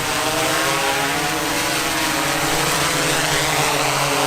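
DJI Inspire 2 quadcopter's motors and propellers buzzing in flight: a steady stack of tones that drifts slightly in pitch, with a faint rising whine near the end.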